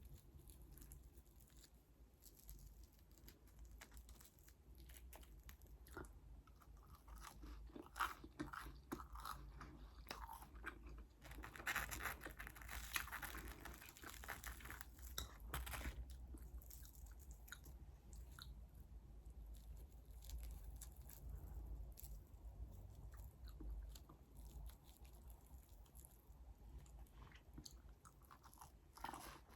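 Close-miked eating: a person chewing and crunching food, with short crisp crackles that grow denser and louder about halfway through.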